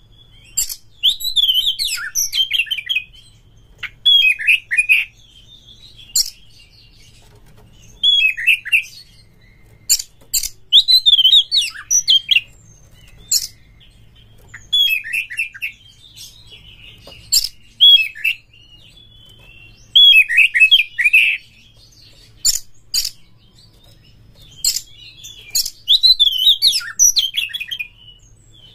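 Oriental magpie-robin singing: short, varied whistled phrases come every couple of seconds, with sharp high ticks between them.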